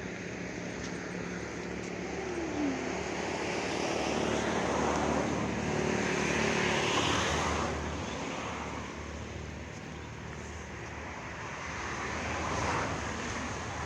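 Steady road and engine noise of a vehicle on the move. It swells louder around the middle and again briefly near the end.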